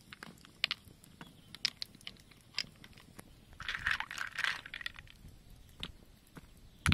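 Snail shells clicking and knocking as they are set one by one into a split banana-tree stem. About four seconds in there is a second of splashing as a hand rummages through the snails in a bowl of water. A sharper knock comes at the very end.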